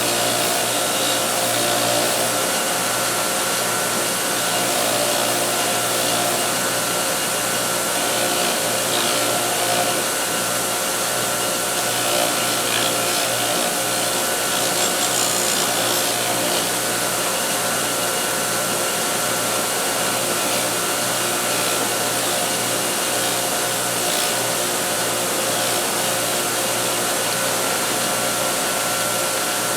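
Bench grinder motor running steadily with a spinning wire wheel, with scratchy rubbing between about 8 and 16 seconds in as the chrome-plated ratchet is held against the wheel to strip rust.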